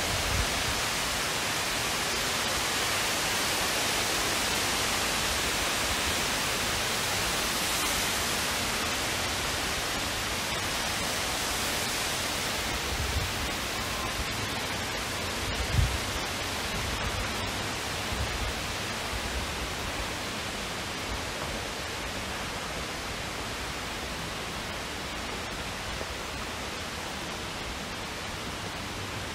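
Steady rushing hiss of falling water, slowly fading, with a dull low thump about halfway through.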